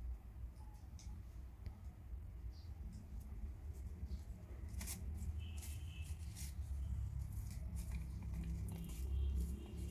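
Faint scuffling and scratching of two kittens play-fighting on a concrete floor, with scattered light clicks over a steady low rumble.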